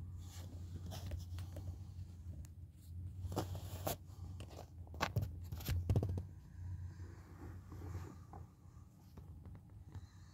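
Handling noise on a handheld phone: scattered clicks, scrapes and rubs over a steady low hum, loudest about halfway through.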